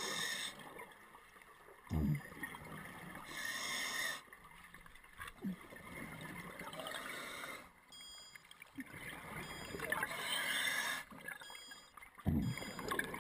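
Scuba regulator exhaust bubbles rushing in bursts of a second or so, every few seconds, heard muffled through an underwater camera housing. A couple of short low knocks come about two seconds in and again near the end.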